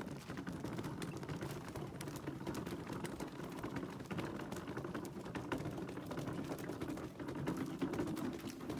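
Small wheeled hand trolley rattling steadily as it is pulled along, a dense continuous clatter of small clicks.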